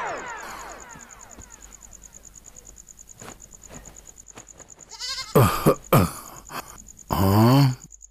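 Goat bleating twice: a short call about five seconds in and a longer, louder one near the end.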